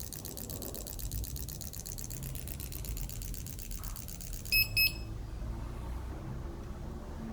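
Fuel-injector cleaning machine running with a low hum and a fast, even ticking that fades out, then giving two short electronic beeps about halfway through.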